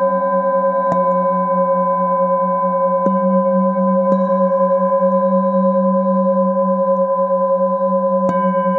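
Metal singing bowls ringing together in a steady drone of several held tones, the lowest one pulsing, as they are struck with a mallet: about a second in, twice around three to four seconds, and again near the end, each strike adding a fresh ring.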